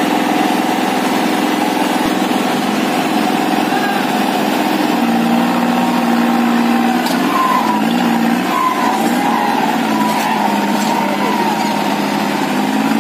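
Diesel tractor engines running hard under full load as a New Holland 5620 and a Mahindra Arjun 555, chained together, pull against each other in a tug-of-war. The note is steady and drops slightly about five seconds in.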